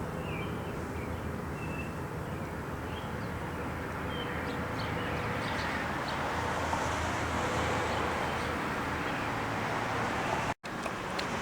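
Steady outdoor background noise with a low hum, and a few faint bird chirps in the first few seconds. The sound drops out for a moment near the end.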